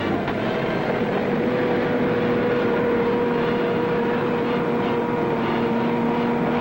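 Engine of an army half-track running steadily as it drives along railroad flatcars.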